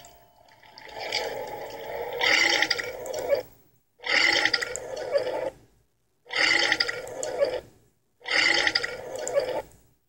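Cartoon sound effects of a bloated cartoon cat: four bursts of about one and a half seconds each, separated by short silences.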